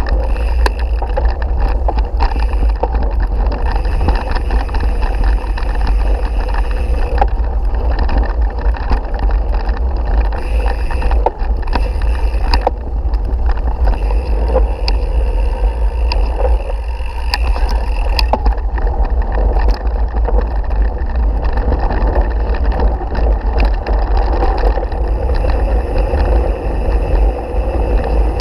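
Ride noise from a camera mounted on a mountain bike's handlebar on a bumpy grass and gravel track: a heavy, steady rumble of wind and vibration, with frequent small rattles and clicks from the bike and the mount.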